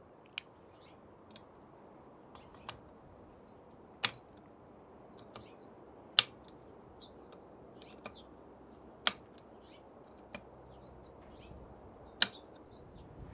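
A torque tool tightening rifle rail screws to 30 inch-pounds: about five sharp clicks a few seconds apart, each as a screw reaches its set torque, with fainter ticks between.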